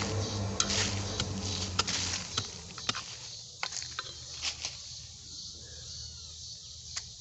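Digging tool chopping and scraping into soil and dry leaf litter: a run of short knocks and scrapes, most of them in the first half, with a few more later and one near the end. A low steady hum fades out about three seconds in.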